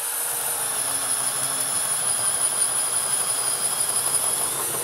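DeWalt 12V Xtreme cordless hammer drill in drill mode and low gear, running steadily under load as a spade bit bores through a wooden board. It has a constant high-pitched motor whine over the rasp of the bit cutting wood.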